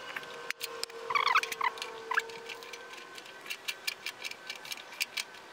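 A run of light, quick clicks from a hand folding tool being squeezed along the folded edge of a door skin, about three or four a second in the second half, with a few bird chirps about a second in.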